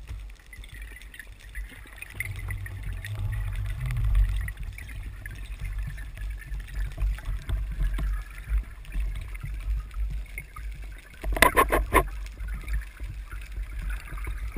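Underwater rumble of water moving past a speargun-mounted camera housing as the diver swims up, with a short cluster of sharp crackles about eleven seconds in.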